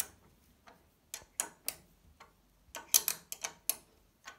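Sharp metal clicks of a small spanner working the saddle clamp nuts of an exercise bike, in two short runs: a few clicks about a second in, and a longer run around three seconds in.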